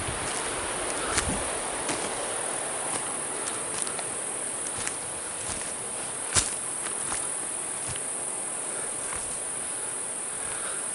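Insects droning steadily in the woods, a continuous high-pitched whine, with a few sharp clicks scattered through it, the loudest about six seconds in.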